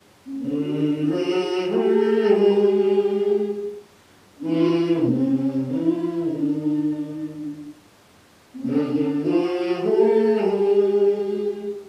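A small group of men's and women's voices singing a Malayalam hymn for the departed, unaccompanied, in three phrases of about three and a half seconds each with short pauses for breath between them.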